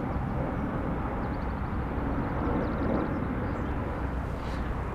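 Wind blowing over the camera microphone, a steady low rumble with no clear pitch.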